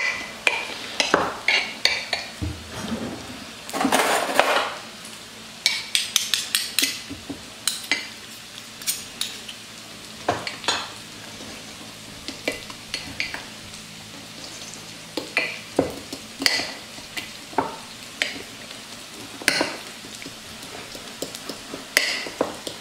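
A metal fork mashing and stirring cream cheese with wild garlic in a glass dish, its tines scraping and clicking irregularly against the glass, with a longer scrape about four seconds in.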